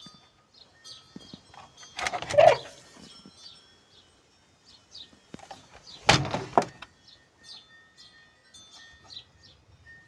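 Small birds chirping in the background, with two loud clattering knocks that ring briefly, about two seconds and about six seconds in.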